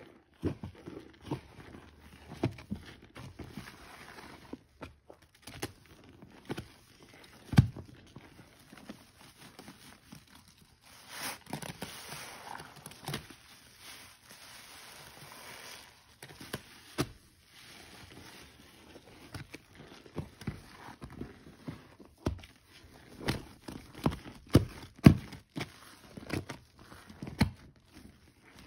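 Wet, soapy sponges squeezed by hand: repeated squelches and crackles, each squeeze a short wet burst. About eleven seconds in, a few seconds of steady hiss as liquid streams out.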